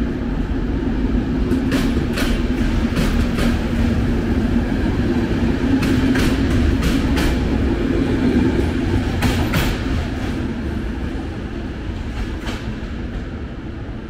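MÁV-START passenger train pulling out, its coaches rolling past with a steady rumble and wheels clicking over rail joints, fading over the last few seconds as the train draws away.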